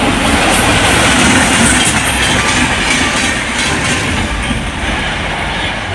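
Passenger train hauled by an electric locomotive passing close by: the coaches' wheels run over the rails in a steady, loud noise.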